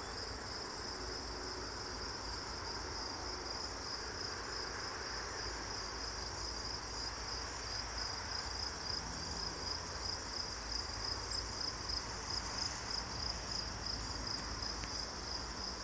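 Crickets chirping in a steady high-pitched chorus with a faint pulsing rhythm, over a low rumble.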